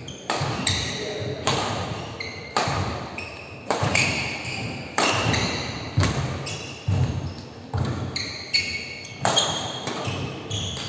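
Badminton rally: sharp smacks of rackets striking the shuttlecock, mixed with players' footfalls and short shoe squeaks on the wooden court, coming every half second to a second and echoing in the hall.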